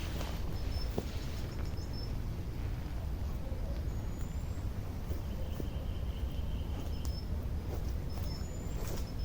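Outdoor ambience: faint short bird chirps repeating every second or so, with two brief rising whistles, over a steady low rumble and a few light clicks.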